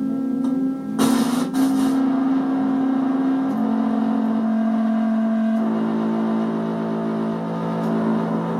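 Analog synth sounds from a homemade 555-timer keyboard driving synth modules: layered held tones that jump to new pitches twice, with a short noisy burst about a second in.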